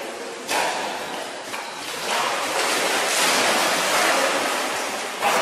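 Water splashing and churning as a dog paddles through a swimming pool. The sound starts abruptly about half a second in and gets louder from about two seconds.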